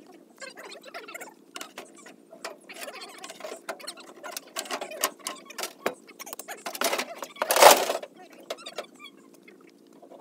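Scattered metal clicks, knocks and scrapes of hand work on a stripped-down tractor. About seven seconds in comes a loud scraping rush ending in a low thud as the large rear tractor wheel is worked off its hub.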